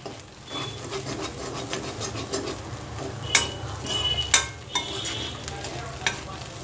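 A metal spatula stirring and scraping a dry, crumbled mutton-and-egg mixture around a steel kadai. In the second half, three or four sharp clanks of the spatula against the pan ring out briefly.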